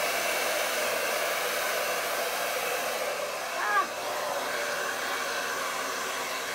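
Handheld hair dryer blowing steadily. A short pitched sound, the loudest moment, cuts in briefly a little before four seconds in.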